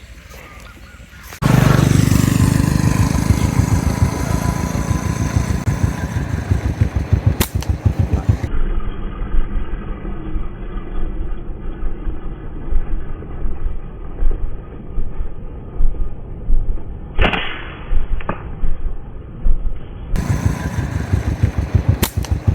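A small motorcycle engine running, heard as a rapid, even pulsing that comes in abruptly about a second and a half in, with one sharp crack late on.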